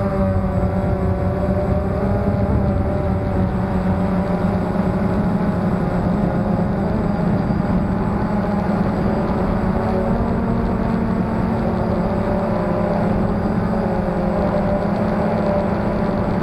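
Phantom quadcopter's electric motors and propellers heard close up from the camera it carries: a steady hum whose pitch wavers up and down with the throttle as it flies.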